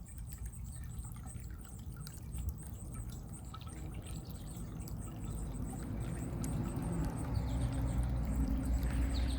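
Running water pouring and trickling, with small drips and splashes, growing louder over the last few seconds.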